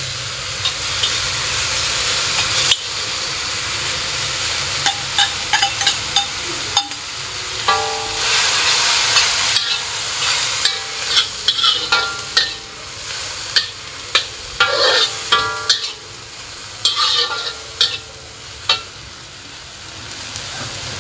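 Water spinach and garlic sizzling in a hot wok, stir-fried with a metal spatula that clicks and scrapes against the wok over a steady frying hiss. The sizzling eases somewhat in the last few seconds.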